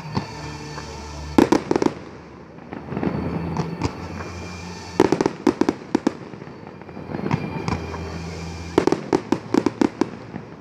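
Fireworks display: aerial shells bursting in three quick clusters of sharp bangs, about a second and a half in, around five seconds in, and a longer string near the end.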